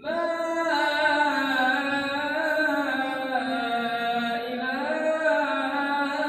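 Solo voice singing in long, drawn-out chanted phrases with slowly bending pitch, entering right after a brief pause.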